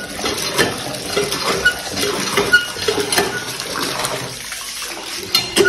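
Water pouring from a hand pump's spout into a plastic bucket, with small glass marbles clinking lightly now and then as they are rinsed in it.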